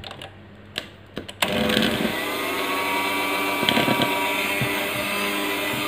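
Electric hand mixer switched on about a second and a half in, then running steadily at low speed with its beaters turning in whipped egg-and-sugar batter as flour is added.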